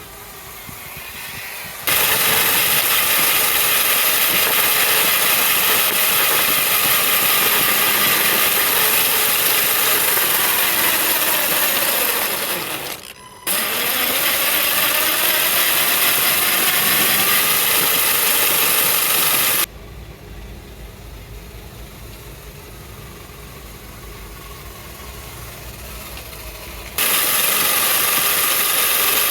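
A radio-controlled truck with a Tamiya Bruiser three-speed gearbox being driven: the electric motor and gears whine, rising and falling in pitch, over a loud hiss of tyres and running noise. The sound cuts in and out abruptly several times, dropping to a quieter low rumble for several seconds after the middle.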